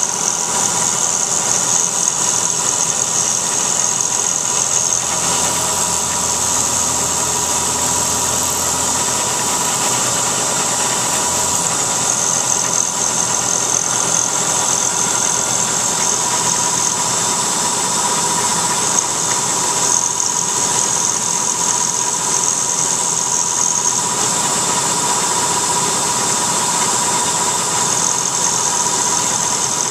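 CNC milling machine cutting aluminium with an end mill under flood coolant. It makes a steady, even cutting noise with a constant whine and a high hiss that holds without breaks.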